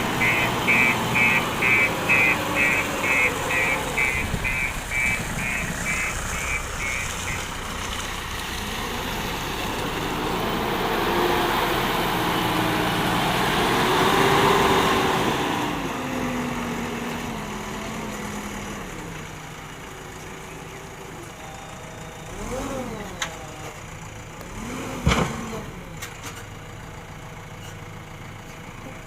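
JCB 3DX backhoe loader's diesel engine running and revving as it works, loudest about halfway through and then settling toward idle. A rapid repeating beep, a few per second, sounds for the first several seconds, and there is one sharp knock near the end.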